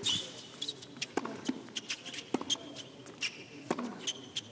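A tennis serve and the rally that follows on a hard court: sharp pops of racket strikes and ball bounces at irregular intervals, with short sneaker squeaks on the court surface.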